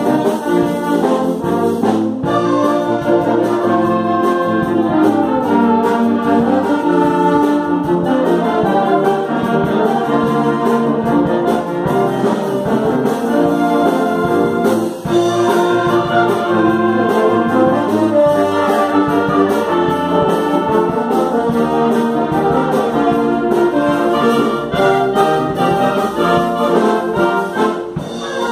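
A concert wind band playing, brass and woodwinds sounding together in full, continuous chords. Loudness dips briefly about halfway through.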